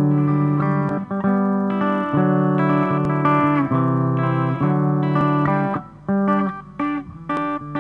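Background music with guitar, its notes and chords changing about once a second.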